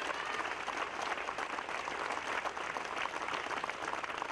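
Crowd applauding: many hands clapping at once in a dense, even patter.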